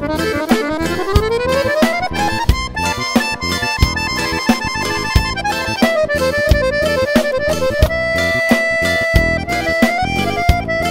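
Accordion playing an instrumental solo over a backing track with a steady beat: a fast rising run in the first two seconds, then a quick ornamented melody with a long held note about eight seconds in.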